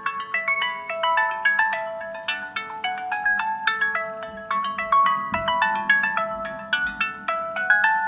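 LG Q6 smartphone playing a built-in ringtone preview through its loudspeaker: a quick, continuous melody of short, ringing notes.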